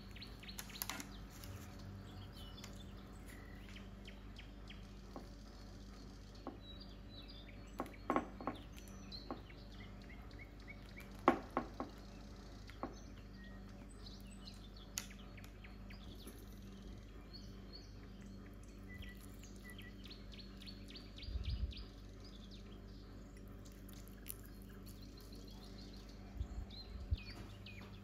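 Birds chirping and twittering in the background, with scattered clicks and clinks of a spoon and dish while food is spread on a baking tray, and a few soft low thumps of handling.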